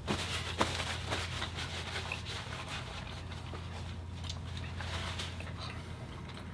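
Paper napkin rustling and rubbing as a man wipes his mouth and face, loudest in the first second or so, then small quiet clicks over a steady low hum.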